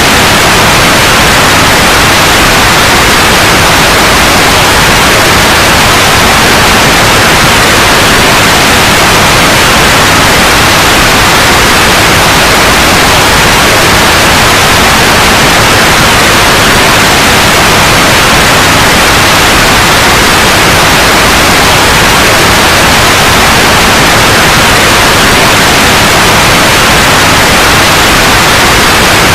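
Loud, steady white noise, an even hiss across all pitches with no change.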